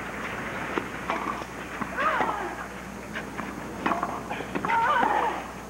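Tennis rally on a clay court: racket strikes and ball bounces about once a second over a crowd murmur, with voices calling out about two seconds in and again near the end.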